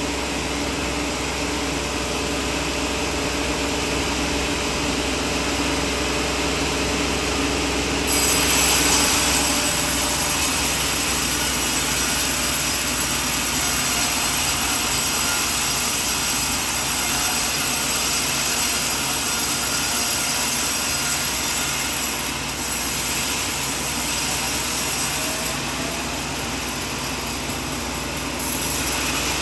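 Sawmill running while sawing coconut wood: a steady machine sound at first, then about eight seconds in a louder, hissier cutting sound starts suddenly. It eases off later and briefly comes back near the end.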